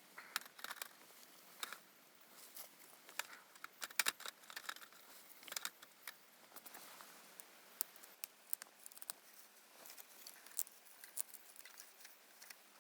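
Light, irregular clicks, taps and crinkling close to the microphone, loudest in a cluster about four seconds in.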